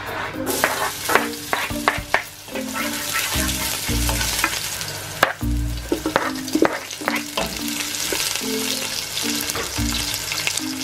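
Diced pork sizzling as it is sautéed in a pot, with a spoon stirring and scraping through it. A steady frying hiss sets in about half a second in, with a few dull thumps along the way.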